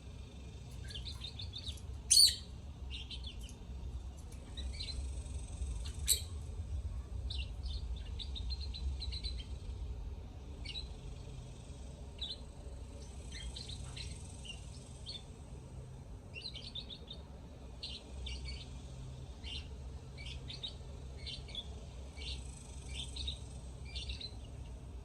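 Lovebirds chirping and twittering in quick clusters of short, high chirps, with two loud, sharp calls about two and six seconds in. A low, steady hum runs underneath.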